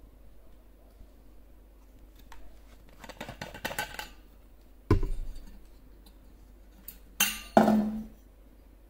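Stainless steel vacuum bottle parts being handled: a run of scraping clicks about three seconds in, a sharp knock near five seconds, then two loud metallic clinks with a brief ring near the end as the stainless tea strainer is lifted from the neck.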